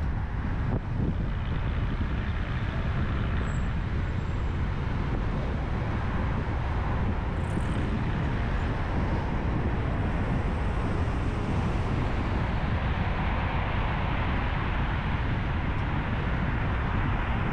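Steady road noise of a car driving: a low, even rumble of tyres and engine that holds level throughout, with no sudden events.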